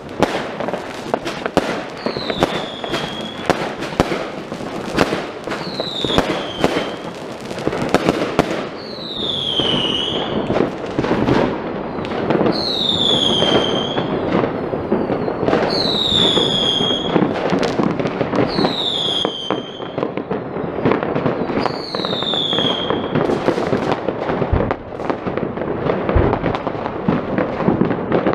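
Dense New Year's fireworks and firecrackers going off all around: a continuous barrage of cracks and bangs. Seven times, about every three and a half seconds, a high whistle slides down in pitch over the barrage.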